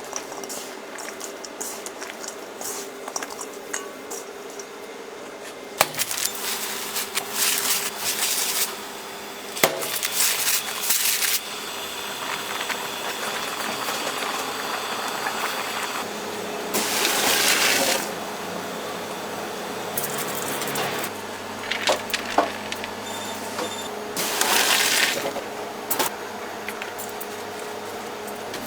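Food being cooked and handled: several loud hissing bursts of a second or two, with scattered clicks and clinks of utensils over a steady background hiss.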